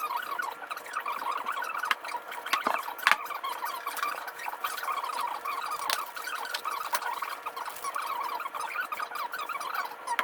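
Sped-up time-lapse sound of engine assembly work: a dense, high-pitched chittering with scattered sharp clicks of parts and tools.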